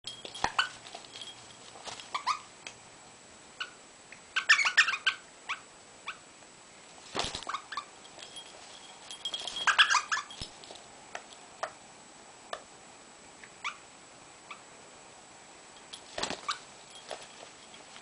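Pet rosella playing on a carpet: scattered light clicks, taps and rustles from its beak, feet and wings against the carpet and a toy, with two short bursts of squeaky chatter about four and a half and nine and a half seconds in.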